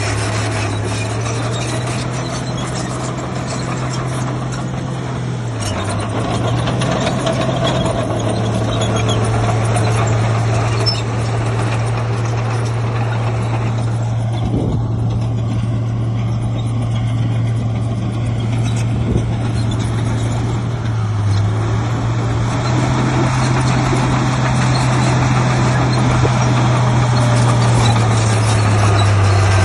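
Heavy earthmoving machine's diesel engine running continuously with a steady low hum, its pitch stepping up and down a few times as engine speed changes.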